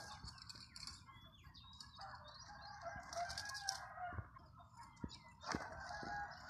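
Rooster crowing: one long crow starting about two seconds in and another starting near the end, with a few light knocks between them.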